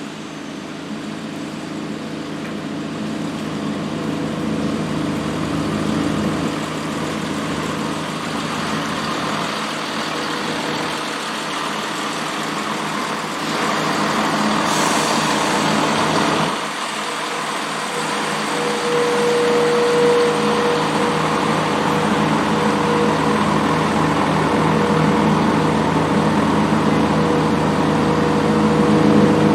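Diesel train engines running at a station, growing gradually louder, with a steady whine joining about two-thirds of the way through.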